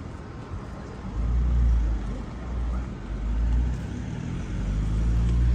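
Low rumble of road traffic, with a truck's engine close by, swelling about a second in and rising and falling in level.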